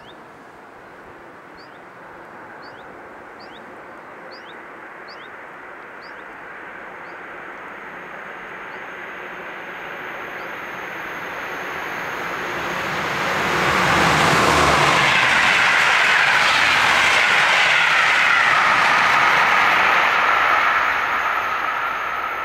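Siemens Vectron electric locomotive and its train approaching and passing on the line, growing steadily louder to a loud rolling rush for about six seconds as it goes by, then fading. A bird chirps a few times at the start.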